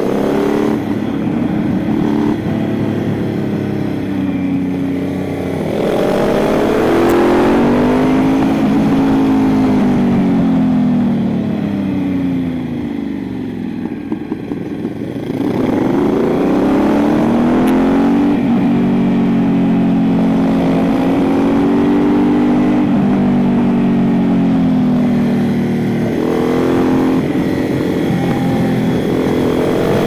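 Aprilia motorcycle engine heard from onboard. It revs up hard as it pulls out of bends, eases off, and runs quieter on a closed throttle about twelve to fifteen seconds in, then pulls up again and climbs once more near the end.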